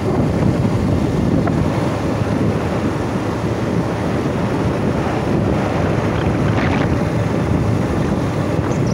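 Wind buffeting the microphone: a steady, loud, deep noise with no break.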